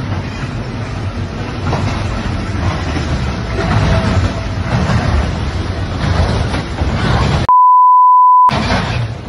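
Freight train derailing: a continuous heavy, low rumble as the covered hopper cars pile up in a cloud of dust. About seven and a half seconds in, a one-second steady censor bleep replaces the audio.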